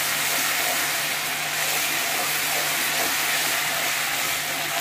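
Spice paste of ground spices and ginger frying in hot mustard oil in a wok, a steady sizzling hiss as a spatula stirs it.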